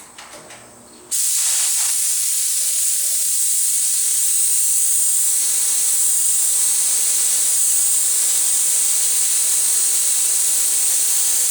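Automotive paint spray gun hissing steadily with compressed air, starting suddenly about a second in. The gun is quarter-triggered to blow air across the fresh base coat and flash off its solvent.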